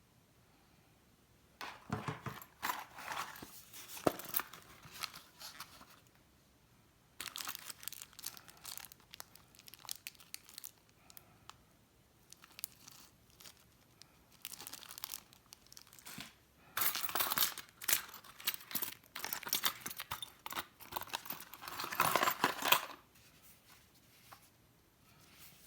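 Packaging of a CPU cooler being handled and torn open, with tearing and crinkling in several spells separated by short pauses. The loudest spell comes a few seconds before the end.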